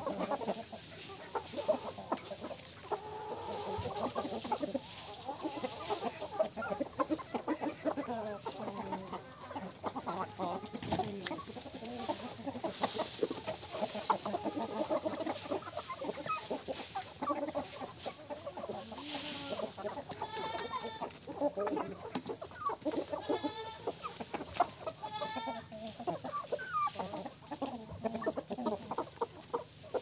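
A flock of free-range chickens, roosters and hens, clucking continuously as they forage. In the second half several longer, drawn-out calls stand out from the clucking.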